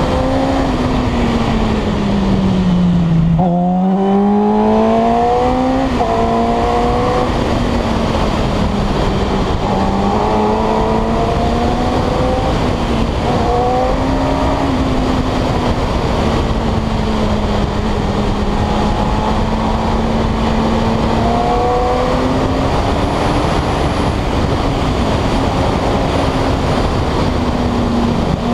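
Yamaha YZF-R6 inline-four engine running under way. Its note falls and then climbs again a few seconds in, and rises in pitch several more times as the bike accelerates, with wind rush on the microphone.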